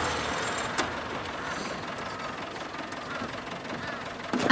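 Tractor engine running steadily, with a single click about a second in.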